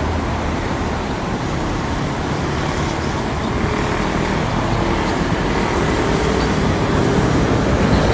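Freight train of covered wagons rolling along the track, with VR Class Dv12 diesel locomotives running at its head: a steady rumble of wheels and diesel engines, growing a little louder in the second half.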